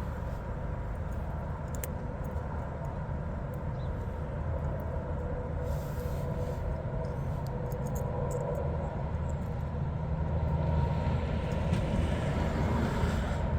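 Steady low machine hum, with a few faint light clicks over it; the hum grows slightly louder near the end.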